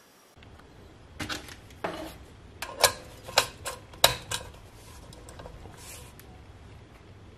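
Brass quick-connect air coupler and hose fitting clinking and clicking as they are snapped onto a compressor's pressure-gauge tee. It is a run of about a dozen sharp metallic clicks with a short ring, the loudest about three and four seconds in.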